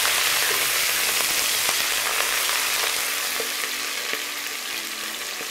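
Chopped green bell pepper and coriander sizzling in hot oil in a stainless steel pot, stirred with a wooden spoon. The sizzle is a steady hiss that slowly dies down as the vegetables take up the heat, with a few light knocks of the spoon.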